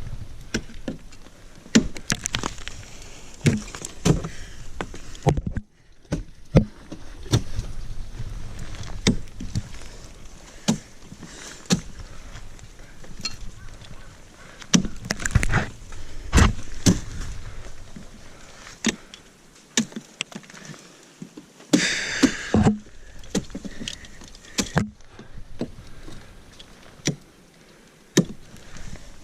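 Ice tools and crampons striking and kicking into waterfall ice, a run of sharp irregular impacts with scraping between them. A short hissing rush comes about three-quarters of the way through.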